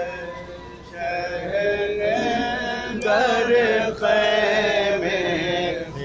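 Men's voices chanting a noha, a Muharram lament, in long sung phrases with short breaks between them.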